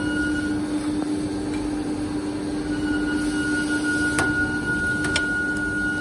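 Vertical injection molding machine running with a steady hum of its hydraulic pump, with a constant low tone and a higher whine. Two sharp clicks come about a second apart near the end.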